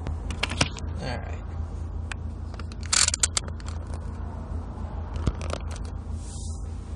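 Hemi V8 engine running at low revs, a steady low pulsing rumble, as the car slows to a near stop and the engine settles to idle. Scattered sharp clicks and scraping sounds ride over it, loudest about three seconds in.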